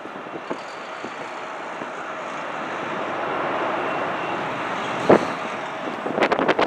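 Airbus A330's twin jet engines running at power as it rolls down the runway for takeoff: a steady rushing noise that swells over the first few seconds. One sharp thump about five seconds in, and wind buffeting the microphone in gusts near the end.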